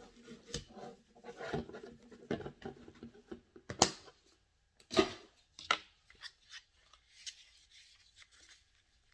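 Hands handling a disinfecting-wipes canister and a phone case on a table: a run of clicks and knocks with rustling, the sharpest about 4 and 5 seconds in, then softer rubbing near the end as a wipe is worked over the case.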